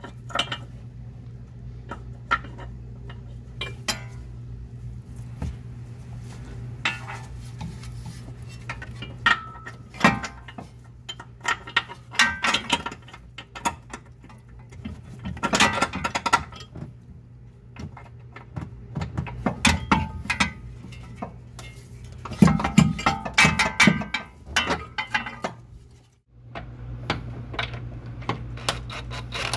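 Irregular metallic clinks and clatter of steel camber-adjusting bolts, washers and hand tools as the bolts are slid through the lower control arm bushings, over a steady low hum.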